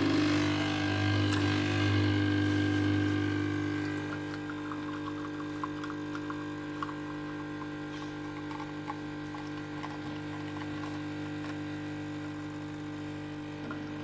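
Capsule espresso machine running its pump with a steady hum as it brews a cup. The hum is louder for the first few seconds, then settles a little lower while the coffee pours.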